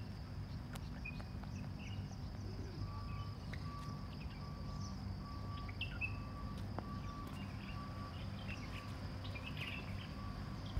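Outdoor night ambience: a steady low hum with a faint high steady whine and scattered short bird chirps. From about three seconds in, a faint beep-like tone repeats a little under twice a second.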